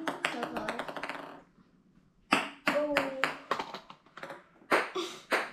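Ping pong ball bouncing on a hard wooden tabletop, the bounces coming faster and faster until they die out after about a second and a half. More scattered sharp taps follow later.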